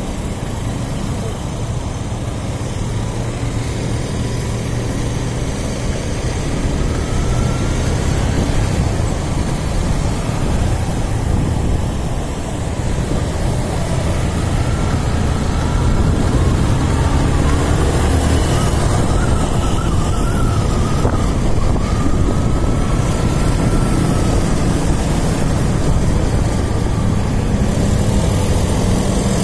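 Riding a motorcycle through city traffic: a steady low rumble of engine, road and wind noise, growing louder about halfway through, with a faint wavering whine in the middle.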